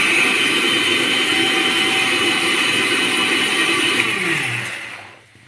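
Electric mixer grinder running at full speed, blending tomato chutney. It is switched off about four seconds in, and the motor winds down with a falling pitch before it goes quiet.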